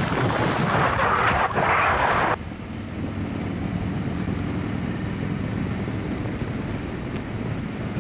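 Harley-Davidson Dyna V-twin running at road speed under heavy wind rush on the helmet microphone. The wind noise cuts off suddenly about two seconds in, leaving a quieter, steady engine and road drone.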